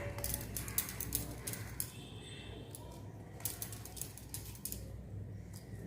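Faint, irregular clicks and taps of a knife cutting kneaded maida dough into small portions on a board.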